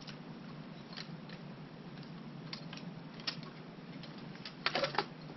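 Scattered light clicks and taps, thickening into a quick cluster near the end, as a fishing rod is slid through a PVC tube cable-tied to a bicycle frame and settled into place.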